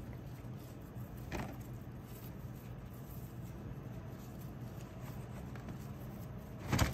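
Faint handling of a potted plant by a plastic-gloved hand, over a low steady hum. Near the end comes a short, louder burst of rapid clicking and crackling.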